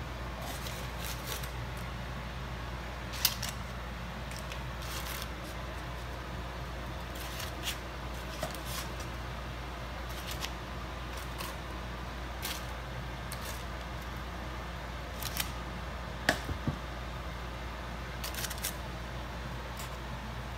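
Metal tongs clicking and clinking against an air fryer basket and a metal pan as foil-wrapped ribs are lifted out, with foil crinkling: scattered light clicks over a steady low hum.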